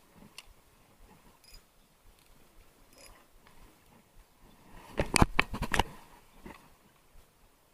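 Handling noise of a fishing rod, spinning reel and camera: a quick run of sharp clicks and knocks about five seconds in, with a few faint ticks before it.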